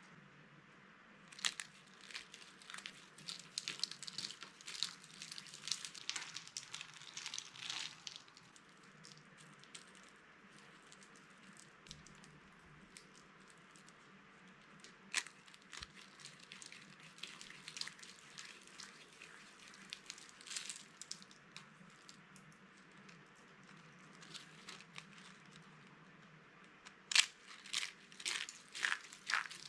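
Dry, watercolour-painted bar soap crunching and crackling as it is crushed: dense runs of sharp crackles for several seconds early on and again near the end, with scattered single cracks between.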